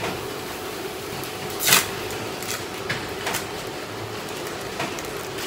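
Thin plastic wrapper crinkling in short bursts as it is peeled off a processed cheese slice, the loudest crackle about a second and a half in, over a steady low hum.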